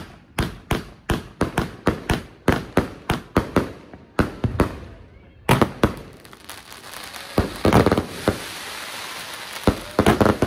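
Consumer fireworks going off. A quick, even string of sharp bangs, about four a second, runs for the first five seconds or so. About halfway through it gives way to dense crackling, with bunches of louder bangs over it.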